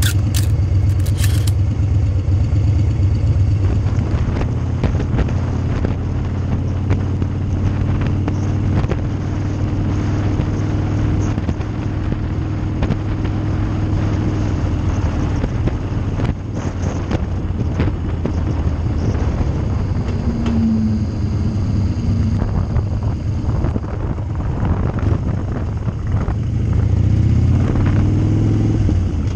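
Harley-Davidson Street Bob's V-twin engine running steadily while riding, with wind and road noise. A few sharp clicks at the start, and the engine note rises near the end as it picks up speed.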